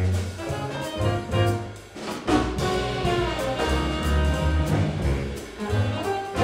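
A jazz band playing, with horns over a bass line that moves note by note, and drums; the music changes about two seconds in.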